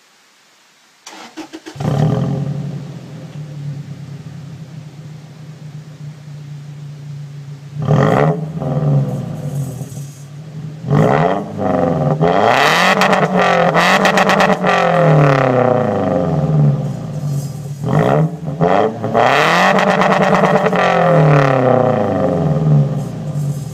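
2008 Toyota Tacoma's 2.7-litre four-cylinder engine, heard at the tailpipe through an Aero Turbine 2525 muffler. It starts about a second in and idles steadily, then from about eight seconds in it is revved again and again: short blips and some longer held revs, the pitch rising and falling. A rattle comes from a piece of welding slag that broke loose inside the muffler.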